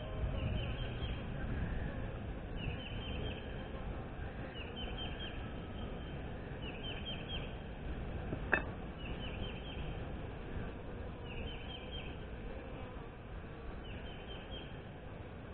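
Steady hum of a crowded honey bee colony in an opened hive box. A bird repeats a short phrase of quick falling chirps about every two seconds, and there is a single sharp click about halfway through.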